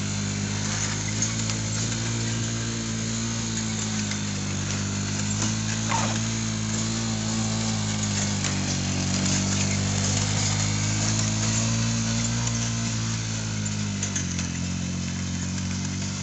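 Drive motor of a roping-dummy track system running steadily, its pitch slowly rising and falling as the dummy circles the track. A brief squeak about six seconds in.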